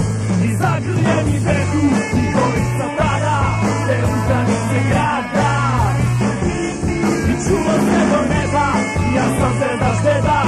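A rock song with singing, playing over a steady bass line.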